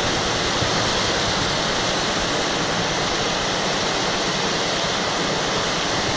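Steady rushing of flowing water, an even hiss with no breaks, from a rain-swollen pond with strong water movement.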